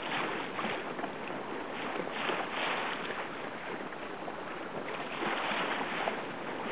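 Wind and water noise out on the water during a dinghy race: a rushing hiss that swells and eases in uneven gusts, with wind buffeting the microphone.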